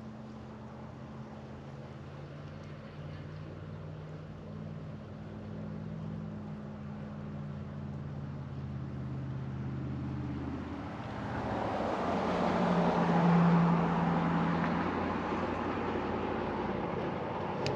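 A motor engine running steadily, growing louder as it comes past about twelve to fourteen seconds in, with a rushing noise at its peak, then easing off.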